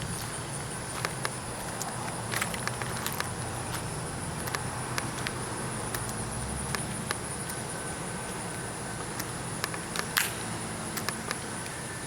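A steady, high-pitched insect drone, typical of summer crickets or katydids, over a low steady hum, with scattered sharp clicks and ticks throughout.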